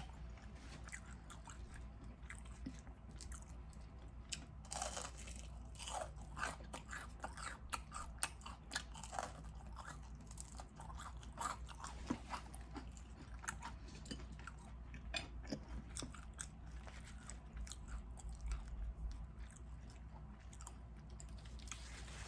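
A person chewing and crunching crispy air-fried shrimp tempura: irregular crisp crunches and mouth clicks, busiest in the middle.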